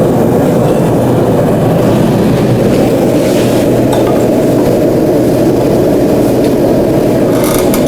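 Propane forge burner running, a loud, steady, even rushing noise.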